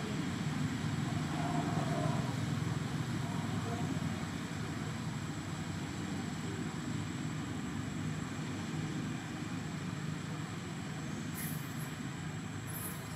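Steady low background rumble with a faint, thin high whine running through it, and two short high hissing bursts near the end.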